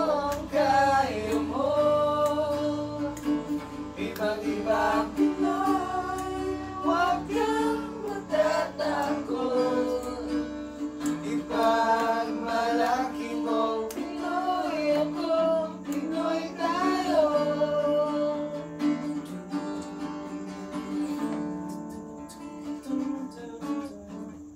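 A man singing to an acoustic guitar. The singing thins out near the end, leaving mostly the guitar.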